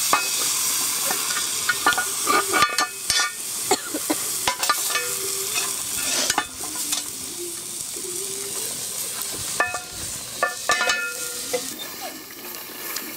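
Charcoal and wood fire hissing and crackling, with many scattered sharp pops.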